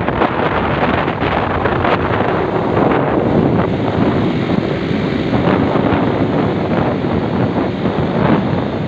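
Steady, loud wind rushing over the microphone of a camera carried along a road on a moving vehicle.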